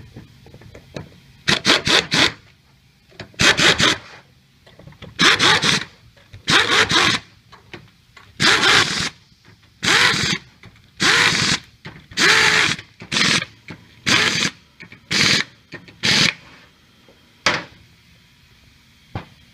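Pneumatic screw gun driving the screws of a pump head home in about a dozen short bursts, roughly one a second. Each burst is a hiss of air with a motor whine that rises and falls. The bursts stop shortly before the end.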